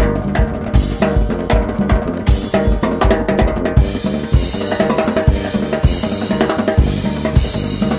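Gypsy jazz band recording: a drum kit plays a busy beat of kick drum, snare and cymbals under bass and pitched instruments, with the cymbals washing in more strongly from about four seconds in.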